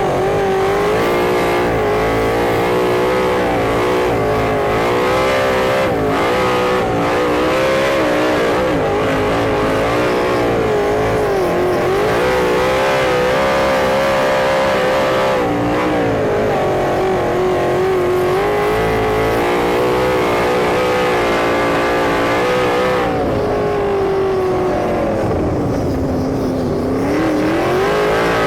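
Sprint car engine at racing speed on an oval, loud and steady, its pitch rising on the straights and dropping as it lifts into each turn, every few seconds, with one long, deep dip near the end.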